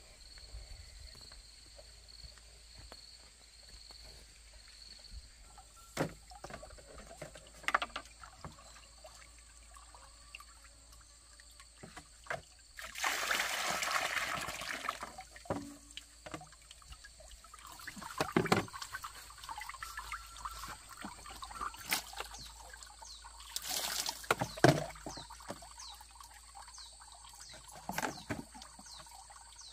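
Water pouring and splashing at a bamboo pipe outlet, in two louder spells about halfway through and again near the end, with scattered knocks of buckets and containers being handled.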